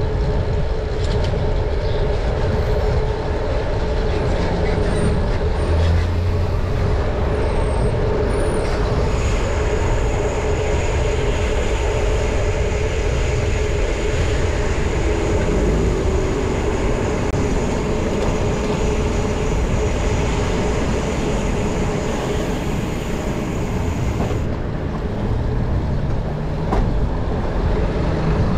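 Steady wind and road noise from a moving bicycle in city traffic, heavy in the low end, with a steady hum throughout. A faint high whine comes in about a third of the way through and stops near the end.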